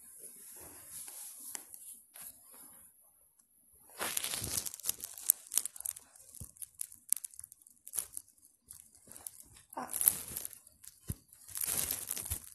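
Rustling and crinkling close to the microphone, in irregular bursts with scattered clicks: one about four seconds in, another around ten seconds, and another near the end.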